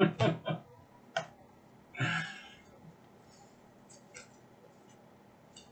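Hockey trading cards being handled on a table: a few sharp clicks as cards are tapped and set down, and a brief papery rustle about two seconds in, then a couple of faint clicks near the end.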